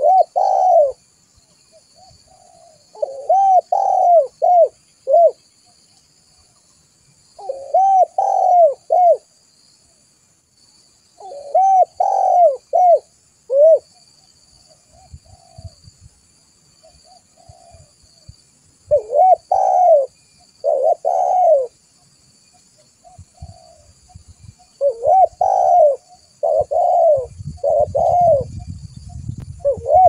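Spotted dove (tekukur) cooing: phrases of three or four arched coos repeated every few seconds, with a longer pause midway. Near the end a faint low rumble runs under the calls.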